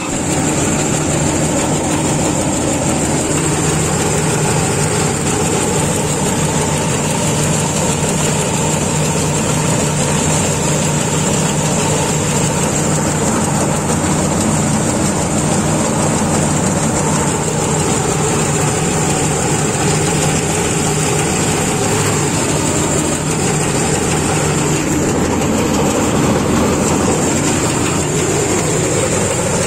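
Tracked combine harvester running steadily as it cuts the crop: a continuous engine and machinery hum with a steady high-pitched whine over it.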